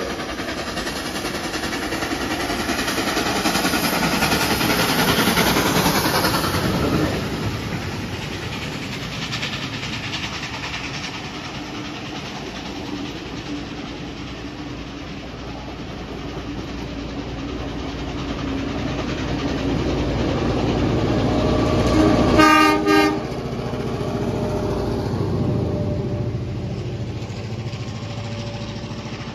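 Steam-hauled heritage passenger train passing close by: the locomotive's running noise swells over the first seven seconds, then the carriages' wheels clatter by. About 22 seconds in a short, broken whistle or horn blast sounds, followed by a lower rumble as the rear of the train goes past.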